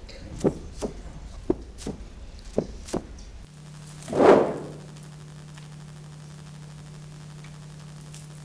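Light knocks, roughly two a second, as of footsteps on a stage floor, stopping about three seconds in. A steady low hum follows, with one short, loud, swelling whoosh a second later.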